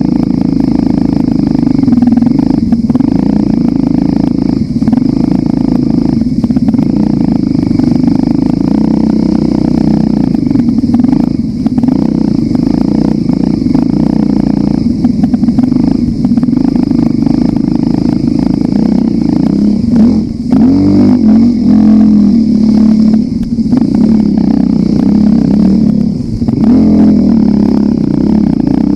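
Motorcycle engine running steadily under way, a loud continuous drone whose pitch shifts with the throttle, wavering noticeably about twenty seconds in.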